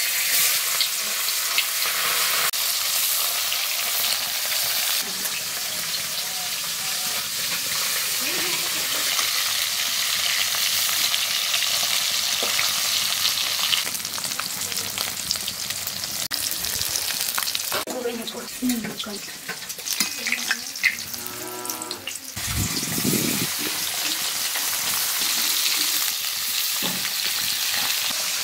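Small turmeric-coated snakehead fish sizzling in hot oil in a steel wok over a wood fire, the hiss starting abruptly as the fish go into the oil and running on steadily.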